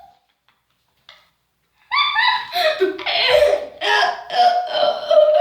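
Laughter in a quick run of short bursts, starting about two seconds in after a near-silent pause.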